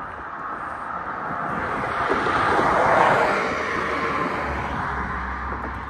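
A road vehicle driving past. Its noise swells to a peak about three seconds in and then fades away.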